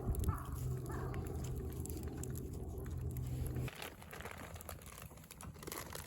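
Campfire wood crackling with scattered sharp pops. A bird calls twice near the start, and a low steady hum under it stops abruptly a little after halfway.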